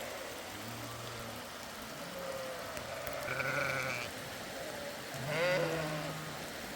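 Sheep bleating twice, the second call louder with a wavering, falling pitch, over a steady hiss of rain.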